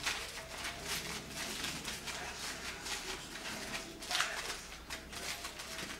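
Crumpled aluminium foil crinkling and crackling as hands squeeze and press it into shape, with a louder crackle about four seconds in.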